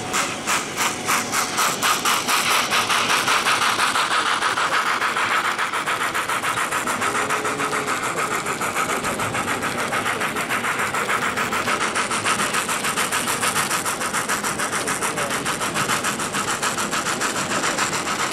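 H0-scale model steam locomotive's sound decoder chuffing in a regular rhythm. The chuffs quicken over the first few seconds as the train pulls away, then run on fast and steady.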